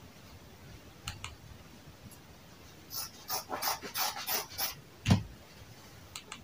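Tailor's shears snipping through denim, about six quick cuts at roughly three a second, followed by a single heavy thump on the worktable. Two faint clicks come before the cutting and two more near the end.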